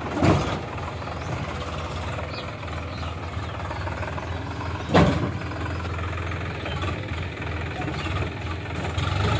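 Sonalika DL 48 RX tractor's diesel engine running steadily as the tractor drives slowly forward towing a tipping trailer. Two sharp clunks break in, one just after the start and a louder one about five seconds in.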